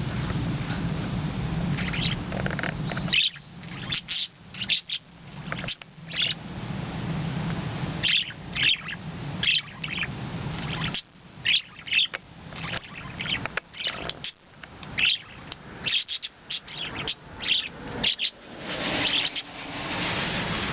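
Pet parakeets chirping in their cage, a busy run of short, sharp chirps coming every fraction of a second, often several close together. Owner takes it as the birds being happy again with their mirrors back.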